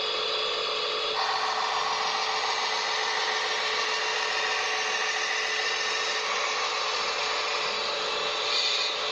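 Motors of a remote-controlled construction model running steadily, a constant whine over a gritty mechanical noise that grows fuller about a second in.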